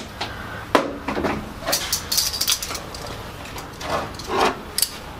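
Handling noises around a portable gas grill: a sharp knock about a second in, then short hissy scrapes and rustles.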